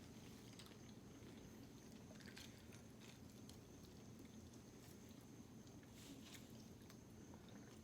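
Near silence: faint chewing with a few soft mouth clicks over low room tone.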